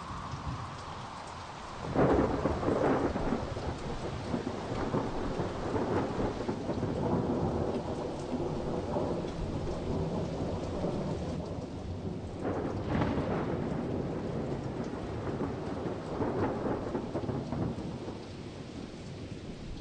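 Steady rain with rolling thunder. A loud rumbling thunderclap breaks about two seconds in, and a second roll swells near the middle.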